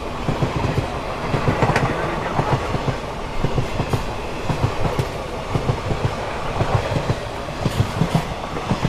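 Nizamabad–Pandharpur passenger train passing close by on the adjacent track, its wheels clattering over the rail joints in a fast, even clickety-clack over a steady rush of air and rolling noise.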